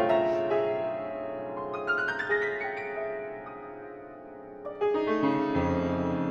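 Grand piano playing contemporary classical music: chords, a quick rising run of notes about two seconds in, the sound dying away, then fresh chords with a deep bass note near the end.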